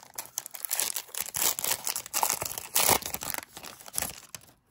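A Disney Lorcana booster pack's wrapper being torn open by hand and crinkled: a dense run of crackling and rustling that stops just before the end.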